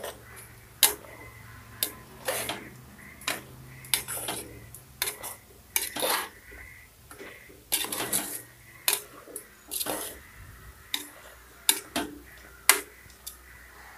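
Irregular sharp clinks and knocks on a metal pressure cooker as raw chicken pieces are mixed with spice powders and salt, by hand and then with a steel spoon near the end.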